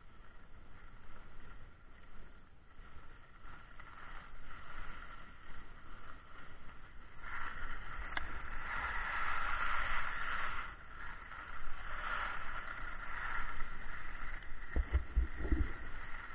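Skis sliding and scraping over snow on a downhill run, a steady rushing hiss that grows louder about halfway through as speed picks up. Wind buffets the microphone in low rumbles near the end.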